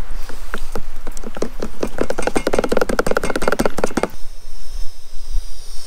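A utensil knocking rapidly and evenly against a metal camp pot, as when stirring or whisking briskly, building up and then stopping abruptly about four seconds in.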